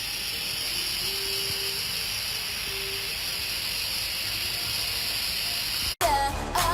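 Steady hiss, made with a household object as a homemade sound effect for a steam locomotive venting as it pulls in and stops. It cuts off sharply about six seconds in.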